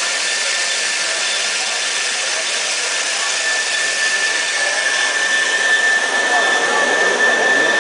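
Band saw machine running: a steady high whine over an even hiss, growing a little louder in the second half.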